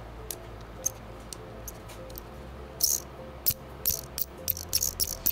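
Failing laptop cooling fan from a Lenovo Legion Y545 spinning over a low hum, with irregular high-pitched chirps and squeaks that come thicker in the second half. The fan wobbles on its shaft and is dead: the squeak is the fault it made every time the laptop was switched on.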